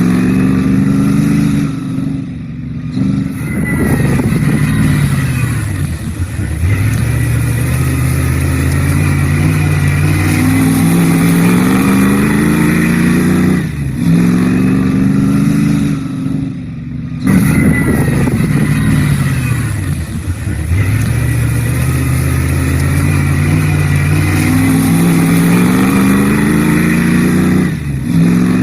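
A vehicle engine revving up and falling back again and again, as if through the gears, loud and steady in level. The same run of revs repeats about every 14 seconds, like a looped recording.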